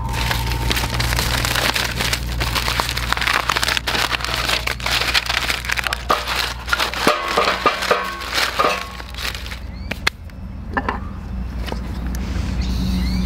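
A bundle of thin dry wood shavings rustling and crackling as it is handled and set on split firewood in a steel fire pit, with a few light knocks. It quietens near the end.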